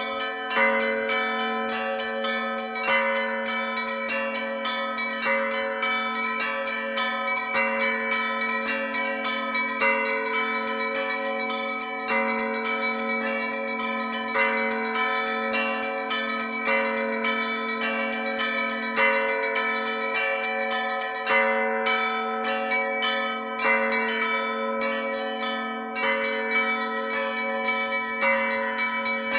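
Russian Orthodox church bells rung in a festive peal: smaller bells struck in a quick repeating pattern, about once a second, over the sustained hum of larger bells.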